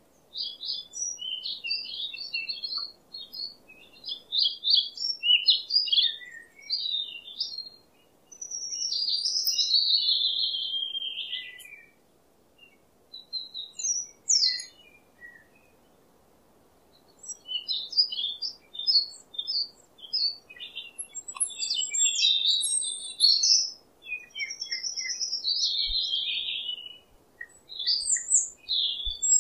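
Small birds chirping and singing in quick runs of high chirps, with a couple of longer falling phrases and short quiet gaps between the runs.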